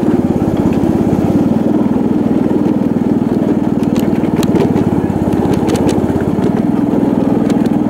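Small engine of a ride-on miniature train's locomotive running steadily, with a few light clicks midway.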